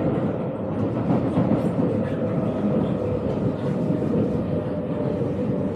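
Ride inside a moving MRT metro train: a steady, loud rumble of the train running on the track, with a faint steady whine.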